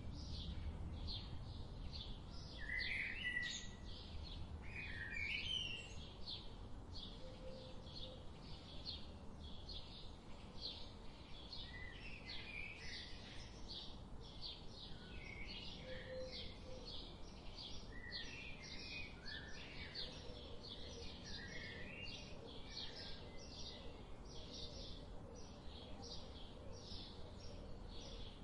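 Forest birds calling: short chirps and gliding whistled notes, over a steady series of high, repeated short notes about two or three a second. There is a low rumble of wind or handling in the first few seconds.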